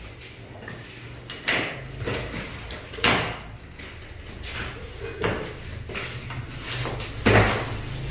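Labrador retrievers biting and tearing at a cardboard box and its plastic packing strap: a string of about five short scraping, tearing noises, the loudest ones about three seconds in and near the end.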